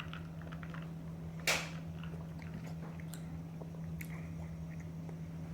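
Someone chewing a mouthful of hot casserole, with small wet mouth clicks, over a steady low hum. A short sharp noise comes about a second and a half in, and a smaller one near four seconds.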